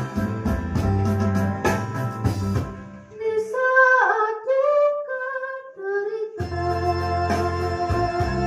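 Electronic keyboard playing sustained organ-like chords over a bass line, dropping out about three seconds in. A woman then sings a short phrase alone, and the keyboard comes back in near the end.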